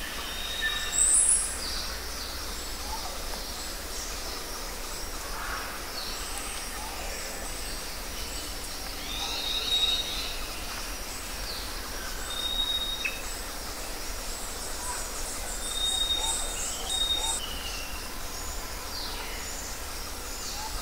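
Outdoor field ambience with birds calling: scattered short whistled notes and high chirps, the loudest a rising chirp about a second in and a quick run of chirps near the middle, over a steady background hiss and low rumble.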